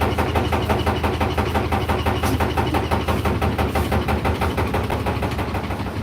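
Whirlpool WFO3P33DLXUK dishwasher running mid-cycle: a steady low pump hum with a fast, even pulsing of water churning and spraying, several beats a second.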